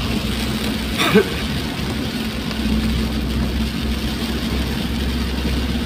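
Steady engine drone and road hiss heard from inside a vehicle driving on a wet road in rain. A brief, sharp louder sound comes about a second in.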